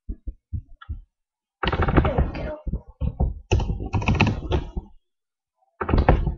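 Typing on a computer keyboard: a few soft separate taps, then three quick runs of keystrokes.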